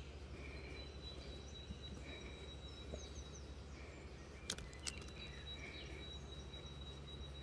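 Faint outdoor pasture ambience: a steady low rumble with a faint chirp repeating roughly every second, a thin high whine in two stretches, and a few small bird chirps. Two sharp clicks come about halfway through.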